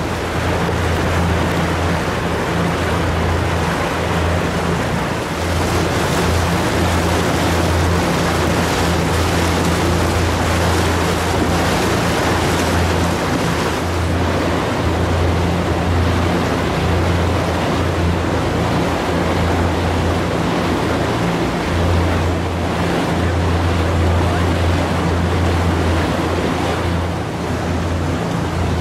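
Tour boat's motor running steadily with a low hum, under a constant rush of water and wind noise as the boat moves along the river.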